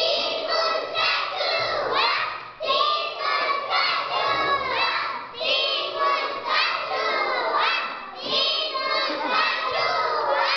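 A crowd of young children shouting and cheering together, many high voices at once.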